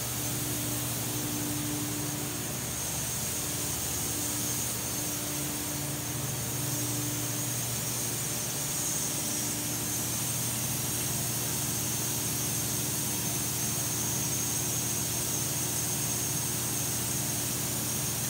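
Industrial thermoforming machine running: a steady low hum with a constant hiss, and a higher tone that stops about seven seconds in.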